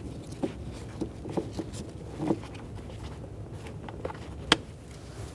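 Scattered small clicks and taps of a screwdriver and screws being worked on a car's plastic door trim panel, over a low steady hum. One sharp click comes near the end.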